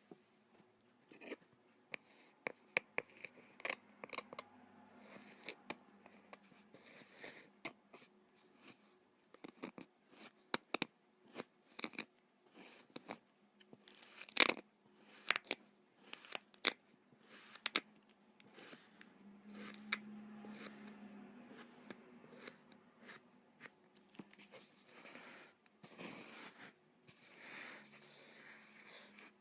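Kinetic sand being handled close to the microphone: crisp, irregular crackling and crunching with a few louder snaps around the middle, and a softer, steadier rustle through the second half.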